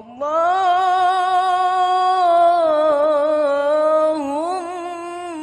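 A solo voice singing an Islamic sholawat, entering abruptly and holding long, drawn-out notes that waver and bend in ornamented runs.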